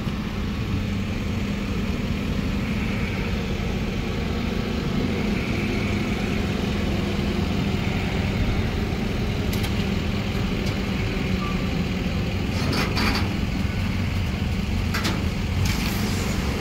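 Forklift engines running steadily with a low hum as a heavy crate is pushed into place. A few sharp knocks come in the second half.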